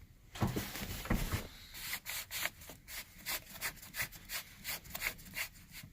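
Van armrest parts being fitted back on by hand: a run of short rubbing and scraping strokes, a few a second, as the parts slide against each other.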